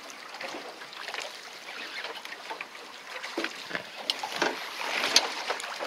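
Water lapping and splashing irregularly against the side of a small fishing boat, a little louder about four to five seconds in.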